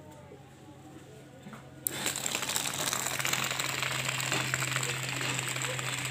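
Small DC motor of a homemade cardboard toy car switched on with a click about two seconds in, then running steadily with a noisy rattle as the cardboard-finned wheels turn on the ground.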